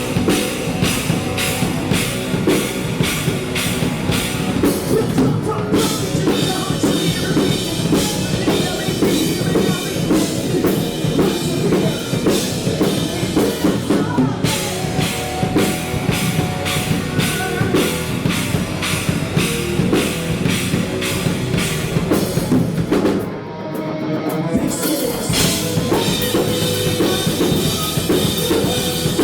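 Rock band playing a song, with a driving drum kit. The band breaks briefly about 23 seconds in, then comes back in.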